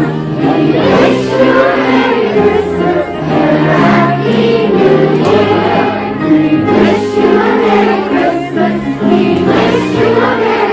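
Elementary schoolchildren singing together as a choir in a Christmas medley, with piano accompaniment.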